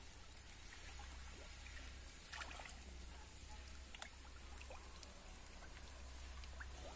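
Faint small splashes and slurps of carp and tilapia snatching floating feed pellets at the pond surface, scattered and irregular, with a couple of slightly louder splashes partway through.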